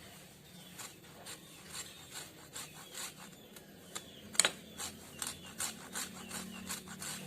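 A lemon being rubbed against a hand grater in quick repeated scraping strokes, about three a second, with one sharper knock partway through.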